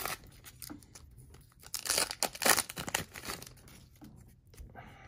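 Hockey card pack wrapper being torn open and crinkled by hand: a short rip at the start, then a louder cluster of rustling and crinkling about two seconds in.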